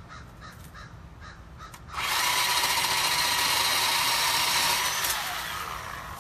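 Bauer 20V cordless electric chainsaw cutting through a small trunk. It starts abruptly about two seconds in with a loud, steady high whine, runs for about three seconds, then winds down with a falling whine.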